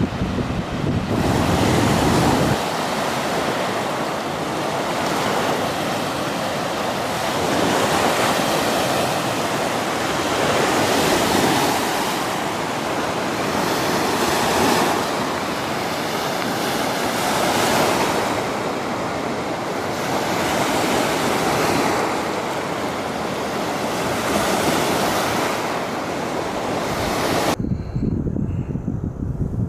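Fast Katun river water rushing through a rapid, heard from low on a catamaran, swelling louder and softer every two to three seconds. Wind buffets the microphone at the start, and near the end the sound cuts suddenly to a duller, quieter rumble.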